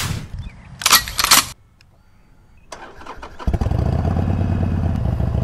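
Harley-Davidson Iron 883's air-cooled 883 cc V-twin starting about three and a half seconds in and then idling steadily. Before that, two loud bursts of rustling as leather riding gloves are pulled on.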